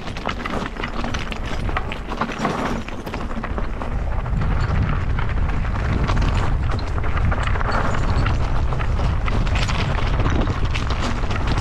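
Mountain bike rattling over a rough trail: a steady clatter of small irregular knocks from the bike and the ground, over a low rumble of wind on the microphone that gets louder about four seconds in.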